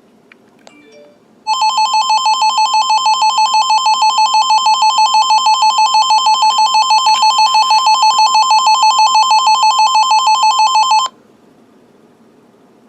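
Emergency weather alert tone: a loud electronic warble flicking rapidly between two pitches, starting about a second and a half in and cutting off abruptly after about nine and a half seconds. It signals an incoming weather warning, with a couple of faint clicks just before it.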